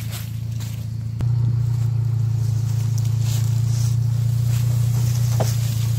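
Off-road 4x4's engine running steadily at idle. About a second in there is a sharp click, and the engine hum jumps louder and holds.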